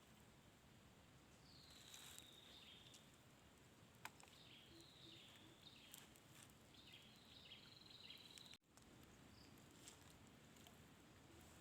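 Faint bird calls over quiet outdoor background noise: one falling whistle, then a string of short chirping notes, with a few soft clicks.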